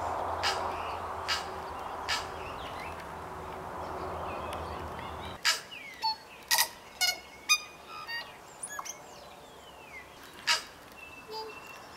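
Tui singing: a string of sharp clicks and short whistled notes, busier after the first few seconds, with one long falling whistle. A steady background rush underlies the first half and then stops abruptly.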